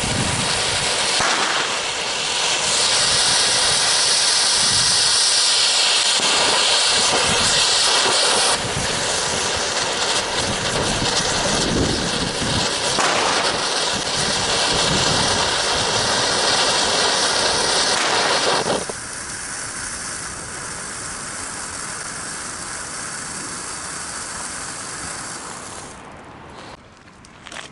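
Firework fountain spraying sparks with a loud, steady hiss that cuts off sharply about two-thirds of the way through, leaving a fainter hiss that dies away near the end.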